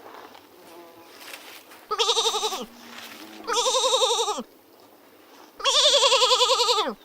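Three loud, quavering bleats, each under a second and a half long, with the pitch dropping at the end of each.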